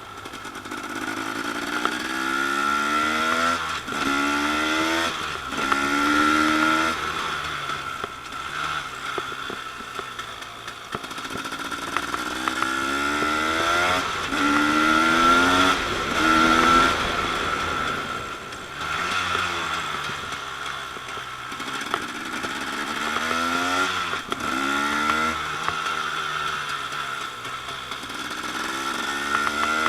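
Two-stroke single-cylinder engine of a 2013 KTM 250 EXC supermoto accelerating through the gears, its pitch rising and then dropping back at each upshift, in runs of three or four shifts with quieter stretches between them.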